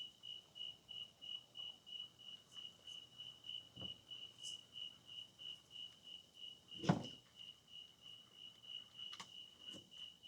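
A cricket chirping steadily on one high note, about three chirps a second. A single sharp knock stands out about seven seconds in.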